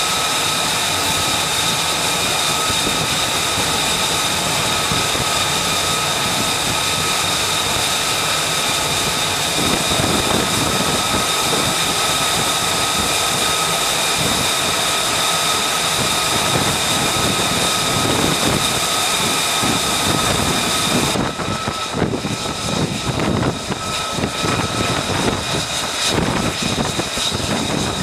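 F-35C Lightning II's single jet engine running while the jet sits on the carrier deck: a steady high-pitched turbine whine over a dense rush of jet noise. The sound shifts abruptly about ten and twenty-one seconds in.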